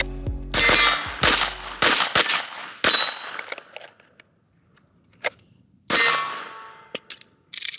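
Glock 47 9mm pistol fired at steel targets: four shots about two-thirds of a second apart, then a fifth about three seconds later, each shot followed by the ringing of the steel.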